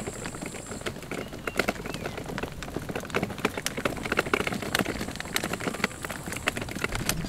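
Baby stroller wheels rolling over a coarse asphalt path: a dense, irregular crackle of small clicks and ticks.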